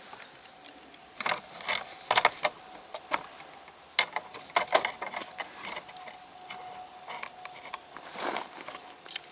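Scattered light metallic clicks and rattles of the FN FAL rifle's gas block and barrel parts being handled, coming in small clusters separated by pauses.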